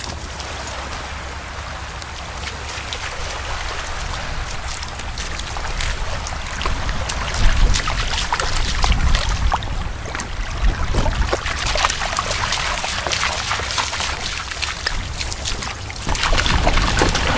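A Chesapeake Bay retriever splashing as it wades through shallow water, many quick splashes that grow busier after the first few seconds, over a steady low rumble of wind on the microphone.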